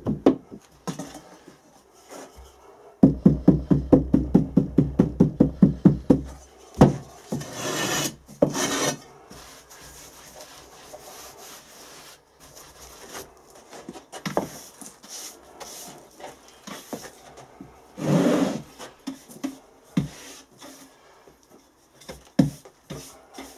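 Green moulding sand being rammed down in a wooden moulding flask, a quick run of sharp thumps for a few seconds, followed by rubbing and scraping across the packed sand surface, with a few small knocks on the wooden box.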